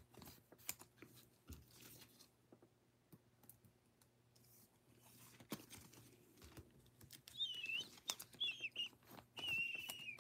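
Soft rustling and small clicks of baseball cards being slid in and out of plastic sleeves and top loaders by gloved hands. From about seven seconds in, a faint, high, wavering whistle joins them.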